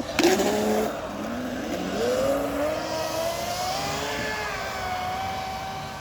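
TP 4050 2310kv brushless motor on 6S in an RC boat, starting suddenly and spinning up: an electric whine that rises in pitch over about four seconds, then holds steady.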